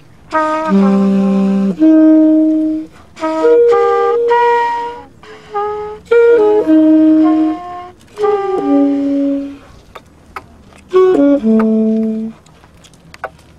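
Tenor saxophone played unaccompanied: jazz phrases of several notes, some short and some held, with short pauses between them.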